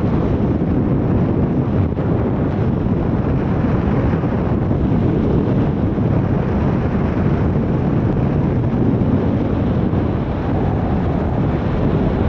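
Wind rushing over the camera's microphone during a paraglider flight: a loud, steady, low rumbling rush with no breaks.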